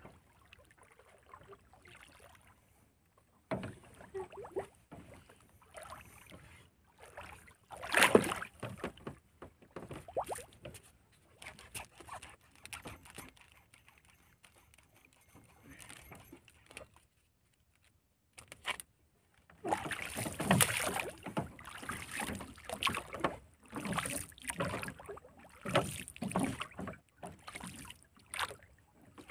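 Irregular rustling, clicking and knocking as fishing line is handled and paid out by hand aboard a small wooden boat. There is one sharp knock about eight seconds in, and the noises come thick and fast in the last third.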